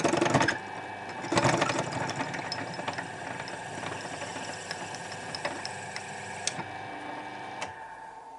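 A lathe running with a steady motor hum while a drill bit in a hand-held drill chuck is fed into the spinning wooden workpiece to clear its bore; the cutting noise is loudest twice in the first two seconds. The lathe winds down near the end.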